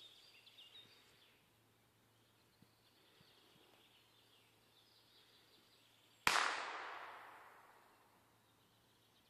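A single gunshot about six seconds in, sharp and then echoing through the woods as it fades over about two seconds: the blank shot that marks a dummy throw in a retriever marking test. Faint bird chirps near the start.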